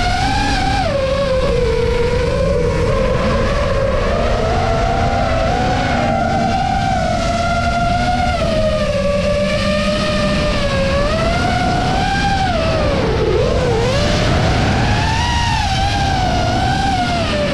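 Apex 6S FPV quadcopter's brushless motors and propellers whining in flight, the pitch sliding up and down with the throttle over a steady rush of wind, as picked up by the onboard camera.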